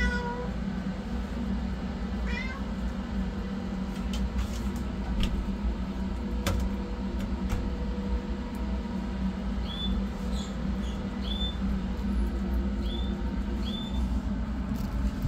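A kitten mews once, briefly, about two seconds in. In the second half come five short, high chirps, over a steady low hum.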